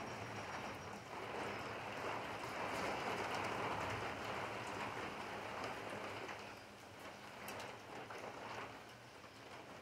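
Steady rain falling on pavement and rooftops, heavier in the first half and easing off after about six seconds, with scattered dripping ticks.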